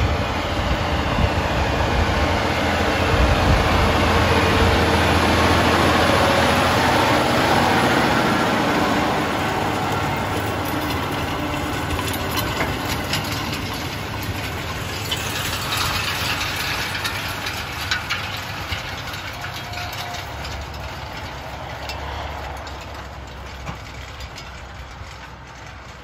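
John Deere 9RX 640 articulated track tractor's 640-horsepower diesel engine working under tillage load, pulling a vertical tillage tool and rolling harrow past: loud in the first few seconds, then fading steadily as it moves away. Scattered ticks and rattles from the implement working dry soil come through in the middle.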